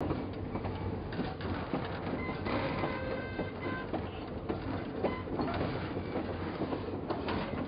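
N scale model freight train, a Southern diesel locomotive pulling boxcars, running along the track: a light rattle of many small irregular clicks from the wheels over the rails, over a steady low hum.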